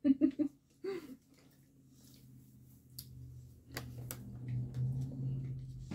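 A man drinking from a soda can: a few faint clicks of the can against the mouth, over a low steady hum that grows louder in the second half.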